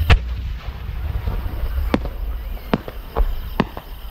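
A large 10-gou aerial firework shell is fired from its mortar with a loud thump just after the start. A low rumble and several sharp cracks follow as it climbs.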